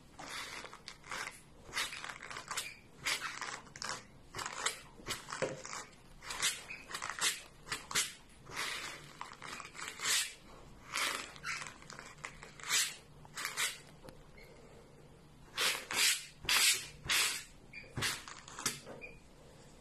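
Wooden pet slicker brush raking through single-strand macrame cord fringe, combing the strands out into fluff. Repeated scratchy brushing strokes come irregularly, about one or two a second, with a short pause about three-quarters through.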